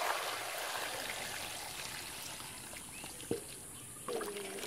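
Water pouring and splashing into a steel bowl full of peeled small onions, then hands swishing the onions around in the water. There is one sharp knock about three seconds in.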